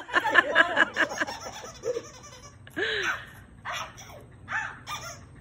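Laughter, dense for the first second or so, then thinning into several short separate bursts about a second apart.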